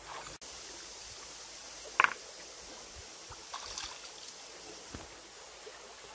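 Shallow stream flowing steadily, with legs wading through the water and one sharp, loud hit in the water about two seconds in.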